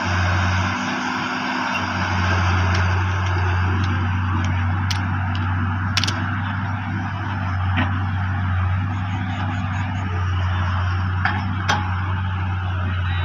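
Diesel engine of heavy machinery running steadily, with a few sharp metallic knocks about halfway and near the end.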